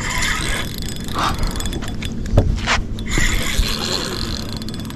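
Penn spinning reel clicking and whirring as a hooked redfish is played on light line, with rustling bursts of handling noise.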